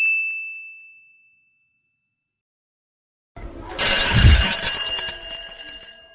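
A single high ding that fades over about a second, then, after a couple of seconds of silence, a loud bell-like ringing with several steady high tones that lasts about two seconds and dies away near the end.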